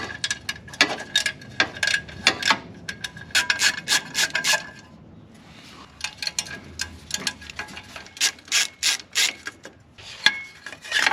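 Ratchet wrench clicking in quick runs of strokes while backing out heat shield bolts, with a short pause about five seconds in.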